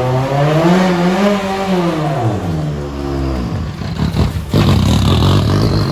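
BTCC Volkswagen Passat touring car engine revving, its pitch climbing and falling back over about three seconds, then running on with a rough, crackly low rumble.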